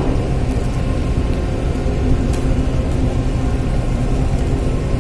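Car ferry's engines running with a steady low rumble as the ship gets under way.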